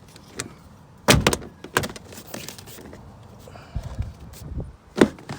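2016 Mazda 6 door trim panel being pressed back onto the door: a series of knocks and thunks as its clips are squeezed into place, the loudest about a second in and another sharp one near the end.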